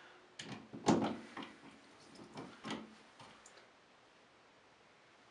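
Screwdriver and screws clicking and knocking against an Aqualisa mixer shower valve as the new thermostatic cartridge is screwed back into the valve body: a handful of short knocks, the loudest about a second in.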